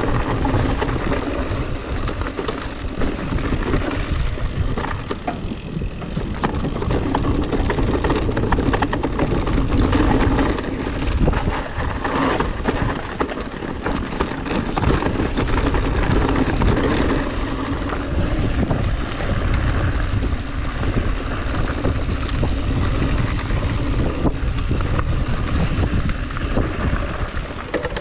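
Mountain bike riding a dirt trail: wind buffeting the microphone over a steady low rumble of tyres on the ground.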